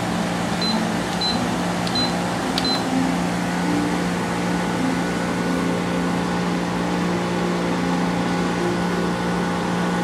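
Maytag 45-pint dehumidifier running with a steady compressor-and-fan hum and rattle; the owner puts the rattle down to the water bucket vibrating from the compressor. Four short high beeps from its control panel come in the first few seconds as the humidity setting is stepped up.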